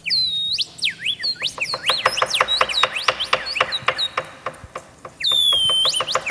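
Birds chirping and whistling in quick rising and falling calls, with a long falling whistle at the start and again near the end.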